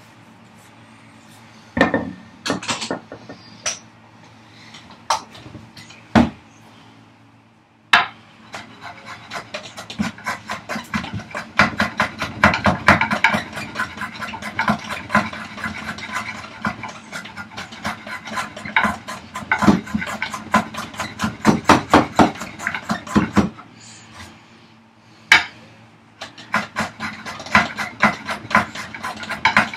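A hand tool taking small amounts off the edge of a hardwood vise chop. A few separate knocks come first, then long runs of quick, repeated strokes on the wood, with a short pause between the runs.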